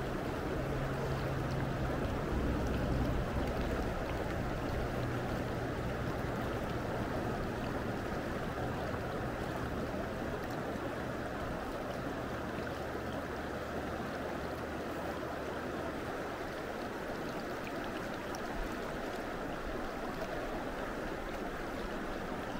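River current rushing steadily: the continuous flowing-water noise of the Gallatin River.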